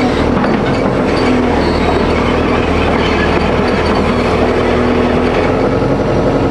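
A loud, steady heavy engine-driven rumble with a steady low drone and rattling clatter throughout.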